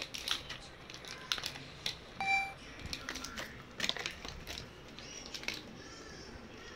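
Plastic crackling and clicking in quick irregular bursts as a cocker spaniel puppy chews and plays with it, with one short high squeak about two seconds in.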